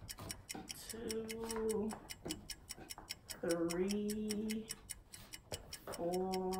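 Fast, steady ticking like a clock, about four or five ticks a second, with a voice humming steady held notes of about a second each: one about a second in, one in the middle and one near the end.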